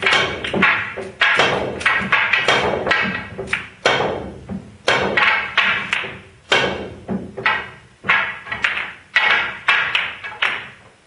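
Background music of struck, piano-like notes, each ringing on briefly, gradually fading out toward the end.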